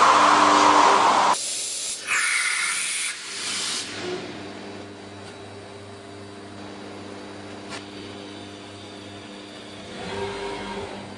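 Routech Oikos CNC beam-processing centre: the router spindle cutting a wooden beam loudly, stopping abruptly a little over a second in. Short hissing bursts follow, then the machine runs on with a quieter steady hum and a few steady tones.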